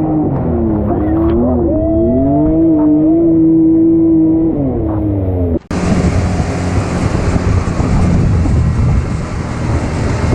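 ATV engine running and revving, its pitch rising and falling, then a sudden cut about five and a half seconds in to a loud rushing noise over a low engine rumble.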